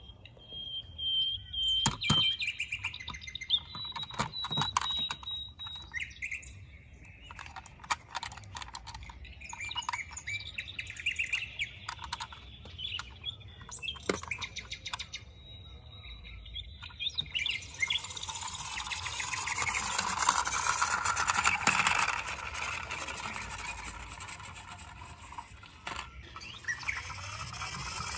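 Birds chirping, with scattered clicks and knocks through the first half. From about two-thirds of the way in, a louder, steady rushing noise rises and then fades.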